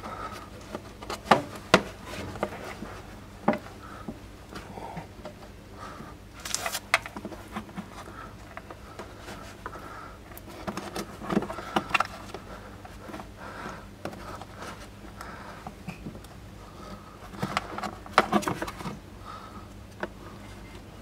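Scattered clicks, knocks and scrapes of hands working plastic parts and a wiring harness in a car's front end while a horn is being fitted behind the radiator. The sounds come in short clusters, the busiest about a second in and near the end.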